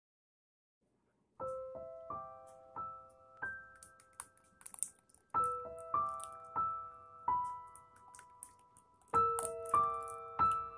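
Background music: a piano playing short phrases of single notes that ring and fade, starting about a second and a half in.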